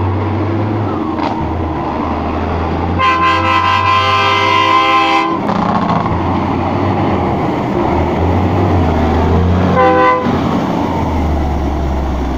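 A 1974 Marmon dump truck's diesel engine running steadily as the loaded truck comes up the road and passes close by. Its air horn sounds a long blast of about two seconds, starting about three seconds in, and a short toot near ten seconds.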